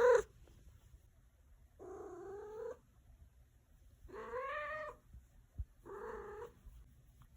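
A house cat giving the same short, pitched cry three times, each under a second and about two seconds apart, after the end of a louder one at the very start.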